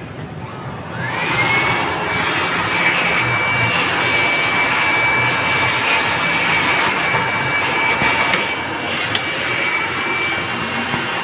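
A small electric motor, of the kind in an air blower or vacuum, starts about a second in. Its whine rises quickly to a steady high pitch and keeps running over a rushing, airy noise.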